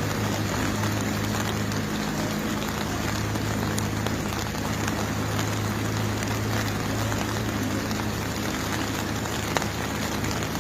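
Steady heavy rain falling, over a low steady hum, with a single short click near the end.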